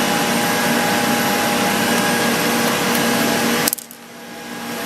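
Steady, loud machinery or ventilation noise with a faint hum running through it. It drops away sharply a little before the end and then slowly builds back up.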